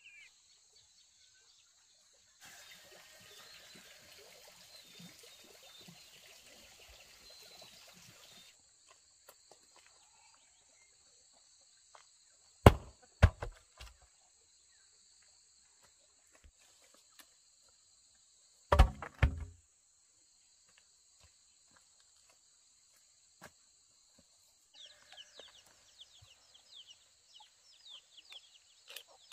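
A steady high insect drone runs throughout. About two seconds in comes several seconds of rustling hiss, then two loud clusters of knocks about six seconds apart, and near the end a run of quick bird chirps.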